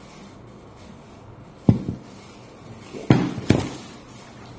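Three dull thuds, like objects knocked down on a hard surface: one about a second and a half in, then two close together about three seconds in.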